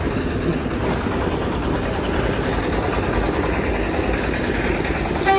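Steady low rumble of idling truck engines, then a brief horn toot near the end.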